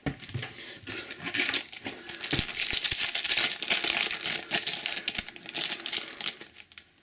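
Foil trading-card booster pack crinkling and crackling as it is handled and opened, busiest in the middle and dying away near the end.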